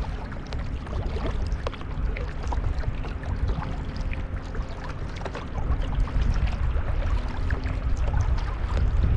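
Water splashing and trickling around a kayak as it is paddled, with many small splashes over a steady low rumble. It gets louder about six seconds in.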